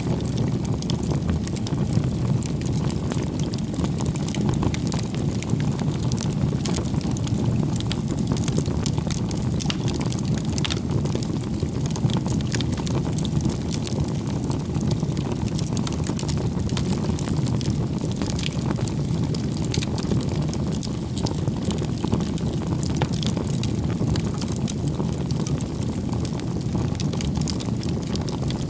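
Campfire burning: a steady low rumble of flame with frequent small crackles and pops scattered throughout.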